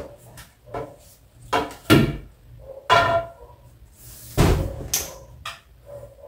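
Curtain rod and the curtain's eyelet rings knocking and scraping as a curtain is slid off the rod, in a string of separate clanks, some with a brief ringing tone; the loudest, a heavy knock, comes about four and a half seconds in.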